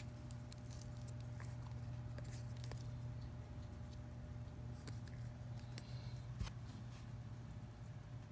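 Faint, scattered light taps and rustles of a small container and substrate being handled as isopods are tipped out, with a small knock about six seconds in, over a steady low hum.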